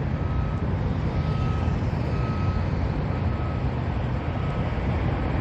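Steady low rumble of diesel construction machinery, with a faint backup alarm beeping about once a second from equipment reversing.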